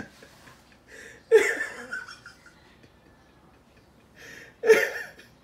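A person laughing in two breathy bursts, about a second in and again near the end, each starting with a sharp intake of breath and trailing off.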